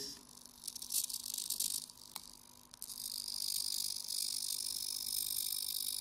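Micro servo motors of a pan-tilt camera cradle whining as they step the cradle slowly under joystick control: a short high whine about a second in, a single click, then a steady high whine from about halfway on.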